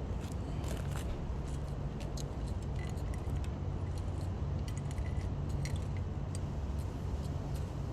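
Scattered light metallic clinks and ticks, irregular and close together, over a steady low rumble.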